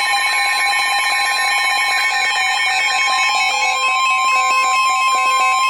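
A NOAA Weather Radio warning alert tone, a single steady high beep near 1 kHz, held without a break. It signals an incoming warning message, here a Special Marine Warning. Other alert tones from several receivers sound together with it, and from about halfway through a second tone beeps on and off a little faster than once a second.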